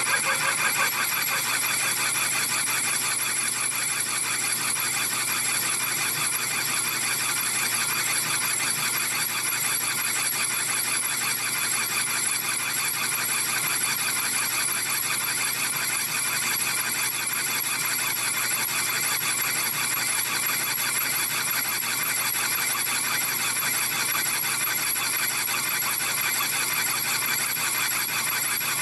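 Metal lathe taking a single-point trepanning cut in a large steel clutch hub, the cutting tool squealing steadily against the spinning steel with a high whine full of overtones, typical of tool chatter.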